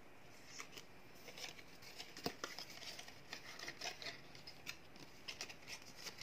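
Paper and a small cardboard box being handled by hand: a run of light rustles and taps, the sharpest about two seconds in.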